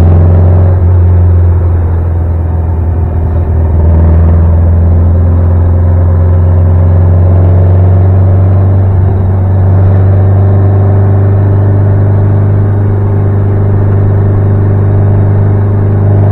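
1960 VW Beetle's fuel-injected engine and performance exhaust heard from inside the cabin on the move: a loud, steady low drone over road noise. The engine note shifts slightly in pitch about four seconds in and again near ten seconds.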